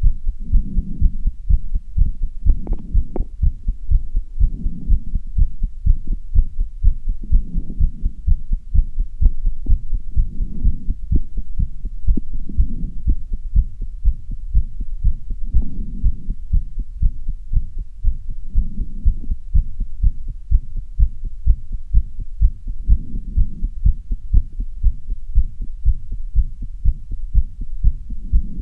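A fast human heartbeat recorded close up, low thumps at about two beats a second: the heart racing after strenuous exercise. A slower swell of low noise rises and falls every two to three seconds under the beats.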